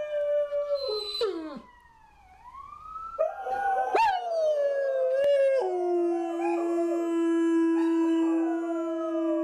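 Dogs howling, more than one voice overlapping in long, gliding howls. There is a brief lull about two seconds in, and one dog holds a steady low note through the second half.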